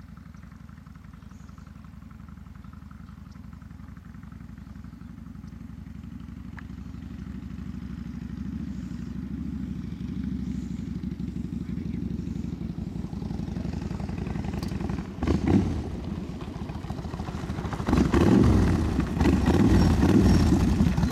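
Cruiser motorcycle engine running as the bike rides up and draws closer, growing steadily louder, with two brief surges of throttle in the last few seconds.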